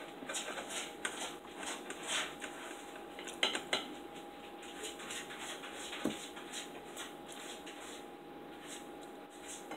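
Knife and forks clinking and scraping on dinner plates as steak and potatoes are cut and picked up: many quiet, scattered clicks, a few louder near the middle.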